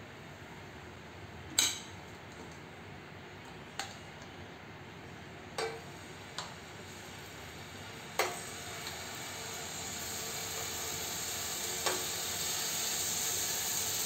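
Pieces of marinated chicken laid one by one on a lightly oiled flat griddle pan, with about six sharp clacks against the pan. A sizzle starts about two-thirds of the way in and grows steadily louder as the chicken begins to fry.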